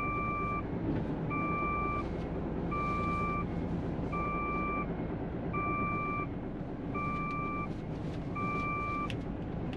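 Hino tractor-trailer's reversing alarm, a steady electronic beep about half a second long repeating roughly once a second, over the low running of the diesel engine as the rig backs into a parking space.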